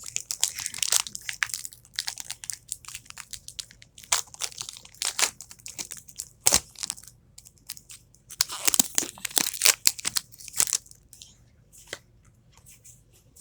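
Foil Pokémon booster pack wrapper being crinkled and torn open by hand, in a run of irregular crackly bursts that thin out over the last couple of seconds.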